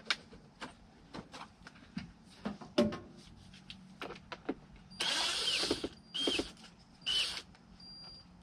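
Small clicks and knocks of plastic parts being handled, then a cordless drill-driver run in three short bursts, the first about a second long, each starting with a brief motor whine.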